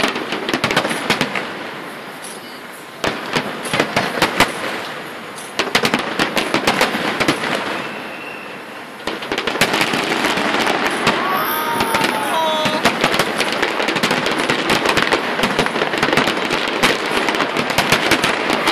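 Aerial fireworks display: shells bursting with rapid bangs and crackling, in waves that each swell and fade, then a dense, unbroken barrage from about halfway through.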